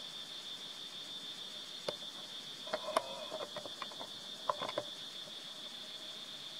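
Insects, crickets or the like, keep up a steady high-pitched drone. Between about two and five seconds in, a scatter of short clicks and brief squeaky chirps sounds close by.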